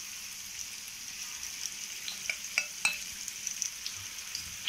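Batter-coated boneless chicken pieces deep-frying in hot oil: a steady sizzle, with a handful of sharp crackling pops a little past the middle.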